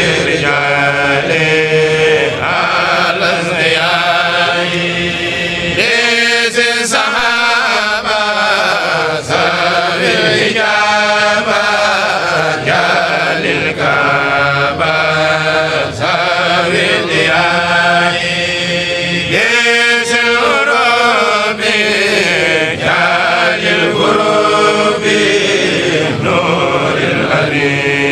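A kourel choir, a group of voices chanting Arabic religious verses (Mouride khassaid) together in long, continuous sung lines.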